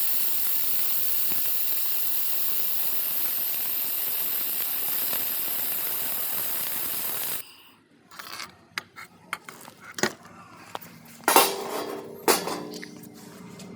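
Laser welding hiss, which stops abruptly about seven seconds in. Light metallic clicks and taps follow, then two sharp hammer blows on the welded metal about a second apart, each leaving a metallic ring.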